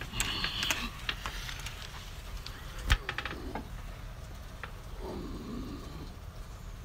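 Scattered light clicks and taps, with one sharp knock about three seconds in, over a low steady rumble.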